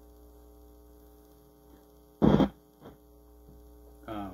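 Steady low electrical mains hum. About two seconds in, a single short, loud burst of noise cuts through it, and a brief vocal sound comes near the end.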